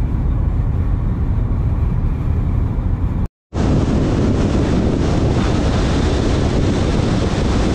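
Steady wind and road noise from a car driving at speed. The sound cuts out for a moment about three seconds in and comes back with more hiss.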